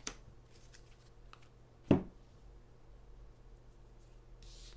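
Oracle cards being handled just after shuffling: faint clicks and one sharp knock about two seconds in, then a brief rustle near the end, over a steady low electrical hum.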